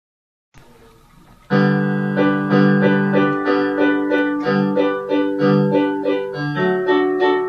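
Piano-style keyboard music starting about a second and a half in, with a steady rhythm of repeated chords over a bass line.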